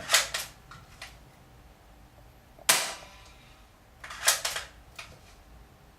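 Spring-action airsoft rifle being cocked and dry-fired with no BBs loaded: sharp snaps of the spring piston releasing and clicks of the cocking action. The loudest snap comes about two and a half seconds in, and a quick cluster of clicks follows about four seconds in.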